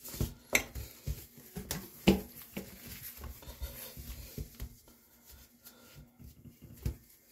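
Hand wiping a bathroom sink basin with a cloth: irregular soft rubbing scuffs and small knocks, the sharpest about two seconds in.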